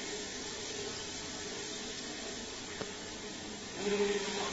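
Steady hiss of background noise, with a faint click about three seconds in and a brief low hum near the end.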